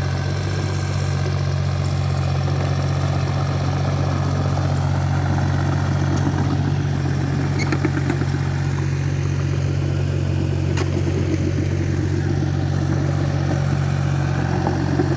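Small backhoe's engine running steadily at an even speed, with a couple of light clicks about halfway through.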